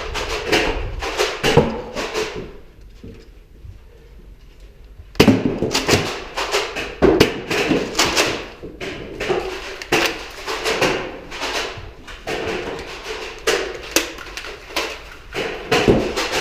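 Nerf Rival blasters being primed and fired, with foam balls striking office surfaces: a fast, irregular run of sharp knocks and clacks. It thins out for a couple of seconds, then comes back dense from about five seconds in.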